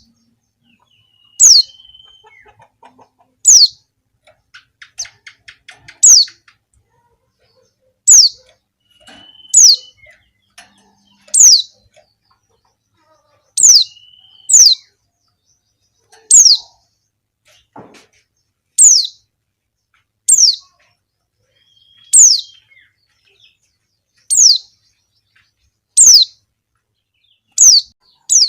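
Female white-eye (pleci) giving a short, high, downward-slurred call over and over, one every second and a half to two seconds, with a brief faint rapid twitter about five seconds in. It is the female's call to males, used as a lure to set white-eyes singing.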